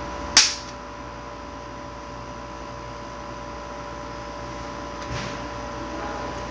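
Steady electrical hum with two constant tones over a background hiss, and one short, sharp high-pitched noise about half a second in.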